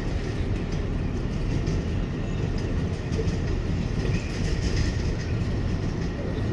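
New York City Subway 7 train running between stations, heard from inside the car: a steady rumble of wheels on rail and running gear, with a faint steady whine above it.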